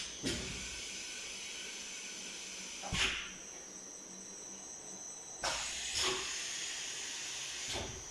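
Automatic bottle-filling machine running, with a steady hiss and a high whine. Five short, sharp bursts of hiss come from its air-driven parts as it works through a filling cycle.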